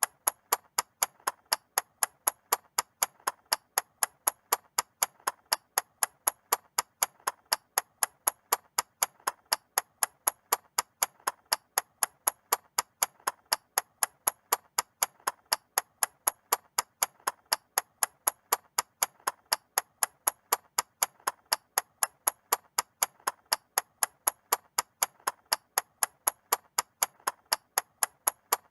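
Mechanical clock ticking: an even, unbroken stream of sharp ticks.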